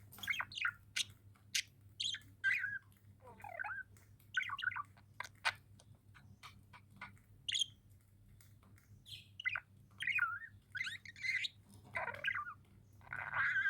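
Budgerigars chirping and warbling in short, varied bursts, mixed with sharp clicks.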